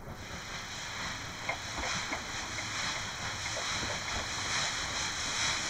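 C10 steam tank locomotive pulling away with its cylinder drain cocks open, blowing a loud steady hiss of steam, with a few faint knocks underneath.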